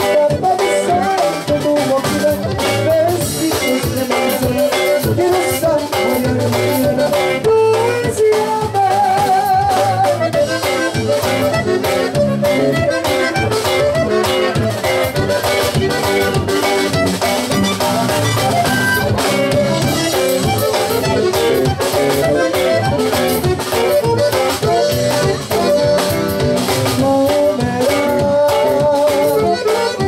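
Live conjunto band playing a song: button accordion with the melody over acoustic guitar, electric bass and a drum kit keeping a steady beat.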